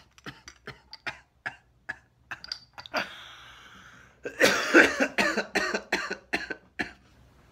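A man coughing hard in a run of repeated coughs after a bong hit, starting a little past the middle. Before it, a string of short clicks and a brief hiss.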